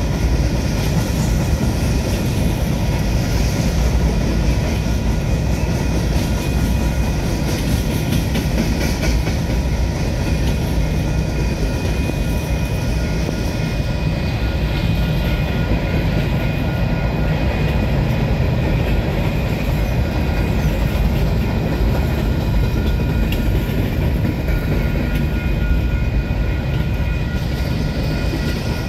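Freight cars rolling past, mostly covered hoppers with boxcars: a steady, loud rumble of steel wheels on rail, with a thin steady high whine over it.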